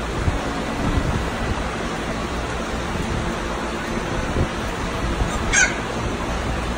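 A steady hiss of background noise, with a retriever puppy giving one short, high squeak about five and a half seconds in.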